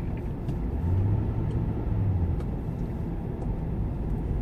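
Car engine and road noise heard from inside the cabin while driving in city traffic: a steady low rumble.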